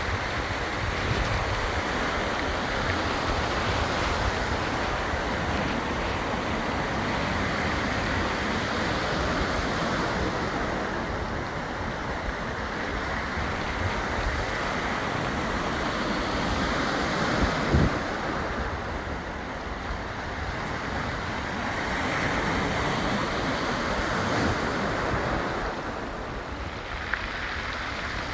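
Surf washing over a beach of round pebbles, with wind, swelling and ebbing every few seconds as the waves come in and draw back across the stones. A short thump about two-thirds of the way through is the loudest moment.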